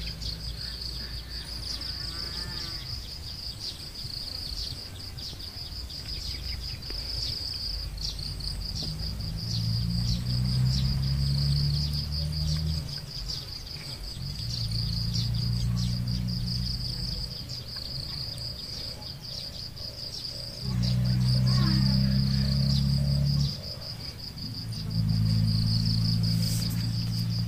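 Steady high buzzing of insects throughout. A low humming drone swells and fades in several stretches of a few seconds each, the loudest around the last third. A short bird call comes about two seconds in.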